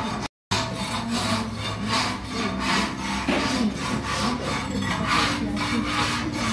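Coffee-roasting machinery at work, a rhythmic scraping rasp that repeats over and over. The sound cuts out for a moment about half a second in.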